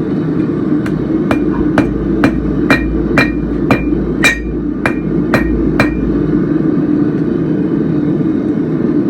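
Hand hammer striking a hot half-inch square steel bar on an anvil, about eleven ringing blows at roughly two a second that stop about six seconds in, cleaning up the end of the bar. A steady low roar of the forge runs underneath.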